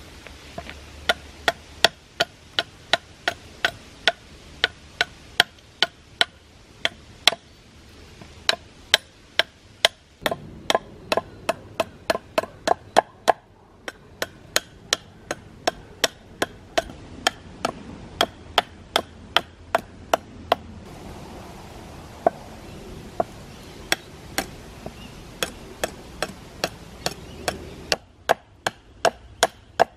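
A steady series of sharp, short knocks, about two to three a second, over a background hush that changes abruptly several times.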